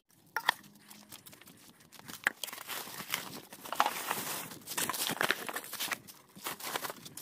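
Clutter being cleared by hand: rustling and crinkling with scattered knocks and clatters, busier and louder from about two seconds in.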